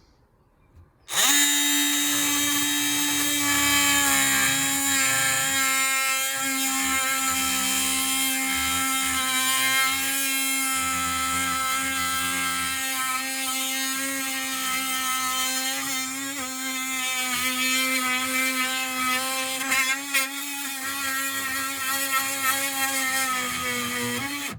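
Dewalt oscillating multi-tool with a high-carbon-steel wood blade cutting through pallet wood: a steady buzzing tone that starts about a second in, holds its pitch, and cuts off just before the end.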